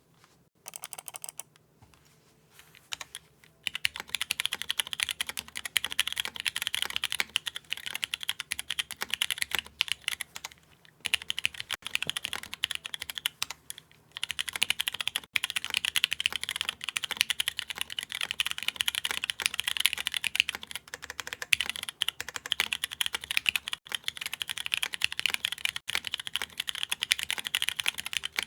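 Rapid typing on a Typ60 mechanical keyboard with lubed Cherry MX Brown Hyperglide tactile switches in a carbon-fibre plate, GMK keycaps and no foam. The carbon-fibre plate is heard over the switches' scratch and clack, which the builder likens to resin. It starts with a few single keystrokes, then runs as steady fast typing from about four seconds in, with short breaks near eleven and fourteen seconds.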